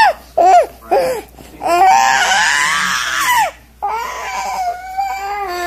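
Young child crying: a few short sobbing cries, then two long, high-pitched wails.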